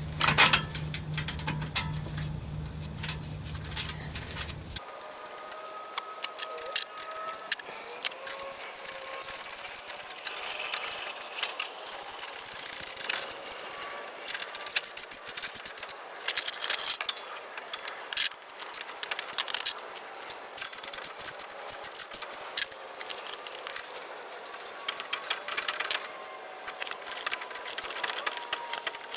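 Hand tools clicking, rattling and scraping against metal while an exhaust repair clamp is fitted and tightened on the exhaust pipe. A low steady hum underneath cuts off suddenly about five seconds in.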